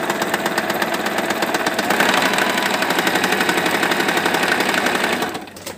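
Singer 3232 household sewing machine stitching zigzag, a fast, even clatter of needle strokes that stops just before the end. The machine runs a bit loud, a noise the seller says oiling takes away.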